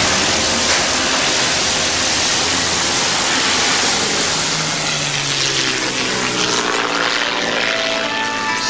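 Propeller airplane in flight, its engine running steadily with a dense rushing noise, fading a little toward the end.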